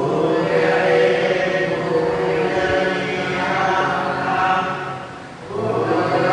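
Buddhist devotional chanting: voices intoning long, drawn-out phrases, with a breath pause about five and a half seconds in before the next phrase begins.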